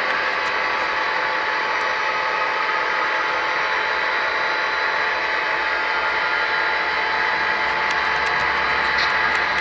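Model freight train running along its track: a steady running hum from the locomotive and rolling cars, with a few light clicks near the end.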